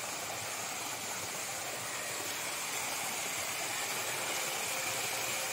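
Artificial waterfall cascading down a rock wall into a pool: a steady rush of falling and splashing water.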